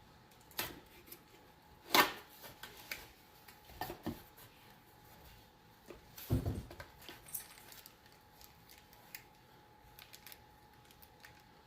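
A camera's cardboard box and its packaging being handled during unboxing: scattered rustles, clicks and light knocks, the loudest about two seconds in and a duller knock past the middle.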